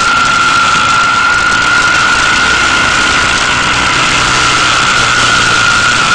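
Onboard sound of a motorcycle ridden at steady speed: loud wind noise on the microphone over the engine's drone, with a steady high whine.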